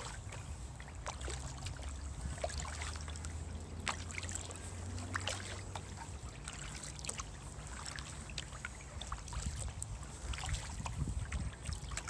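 Kayak paddle strokes with water dripping and trickling off the blades: a steady scatter of small splashes and drips. A low hum sits underneath in the first half.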